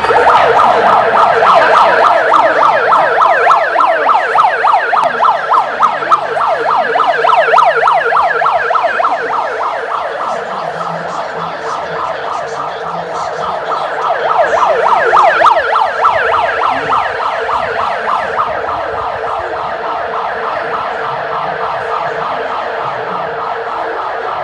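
Electronic alarm siren in a fast yelp, its pitch sweeping up and down several times a second: the alarm signalling the start of the earthquake drill. It comes on abruptly and keeps sounding.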